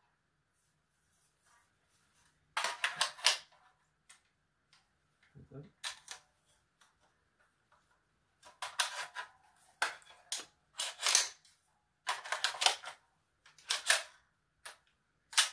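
AR-15 being worked by hand with an aluminum GI magazine: a series of sharp metallic clacks and clicks in separate bursts as the magazine is seated and the charging handle is run, ending with the bolt locking back on the empty magazine.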